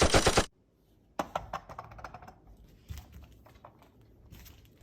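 Rapid machine-gun-style fire stops abruptly about half a second in. After a short near-silence come scattered light clicks and taps, loudest at first, then thinning out.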